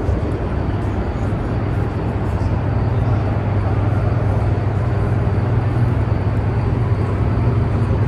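Hoover Dam's hydroelectric generating units running, a steady low hum over a constant rushing drone.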